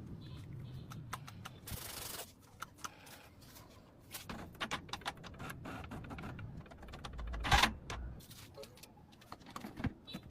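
Irregular clicks, taps and clatter of hand work on metal bike parts, with a short hiss about two seconds in and a louder knock near the eighth second.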